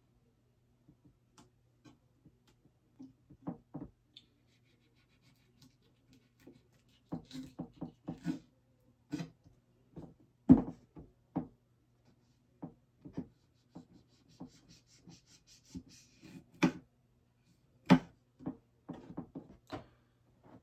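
Hand-work sounds of a knife cutting excess rubbery stealth strip off a carbon fiber climbing stick: scattered taps, knocks and scraping rubs, with a sharper knock about halfway and another near the end, over a faint steady hum.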